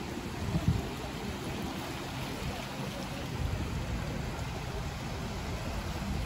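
Wind buffeting the microphone over small waves washing against a rocky shoreline, a steady rumbling rush with one brief thump on the microphone near the start.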